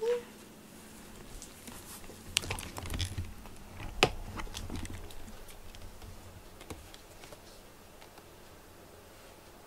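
Scattered light clicks and taps with a few dull bumps, loudest about four seconds in, as a cat brushes against the camera and moves about. It dies away to quiet room tone in the last couple of seconds.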